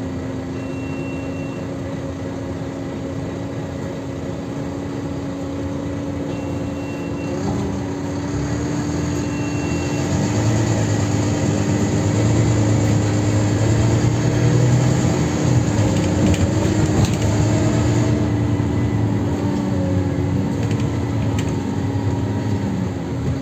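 Volvo B9TL double-decker bus heard from inside the saloon: its six-cylinder diesel running with the engine cooling fan on, a steady tone under the engine. Three short high beeps sound in the first ten seconds; from about eight seconds in the engine grows louder as the bus pulls, easing off again after about eighteen seconds.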